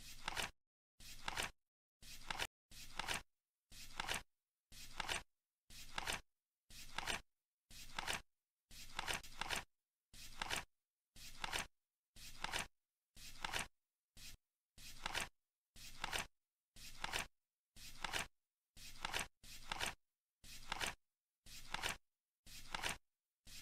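Countdown ticking sound effect: a short, swelling tick that repeats steadily about once a second and cuts off sharply each time.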